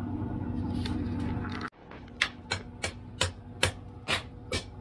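A steady low hum cuts off sharply just under two seconds in. It gives way to a blacksmith's hammer striking hot steel on the anvil in an even rhythm of about two to three blows a second, forge-welding the steel and carbon-steel layers of a Japanese kitchen-knife blade.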